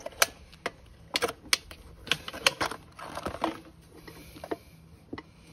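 Irregular clicks and clinks of a steel tire spoon against the wheel rim, with crinkling of plastic rim protectors, as the bead of a Honda Monkey 125 rear tire is worked off the rim.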